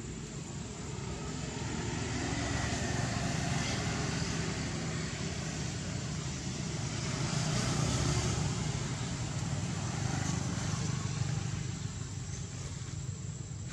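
Steady outdoor rumble, like distant road traffic, swelling louder twice, with a faint steady high whine over it.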